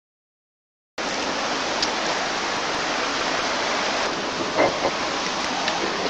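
A steady rushing noise that starts abruptly about a second in, out of silence, with two brief louder sounds a little over halfway through.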